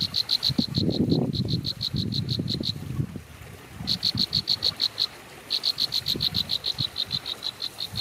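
An animal calling in a rapid series of high, clicky pulses, about eight a second, in three runs with short breaks, over a low rumbling background.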